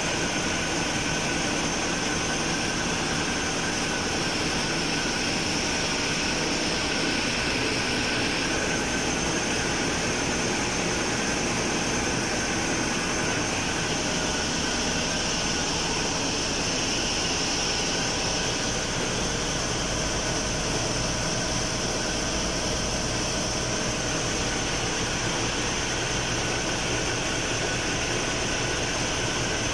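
Steady, loud engine-room din of a ship's running Hanshin marine diesel main engine, with the hum and hiss of auxiliary pumps and machinery, unchanging throughout.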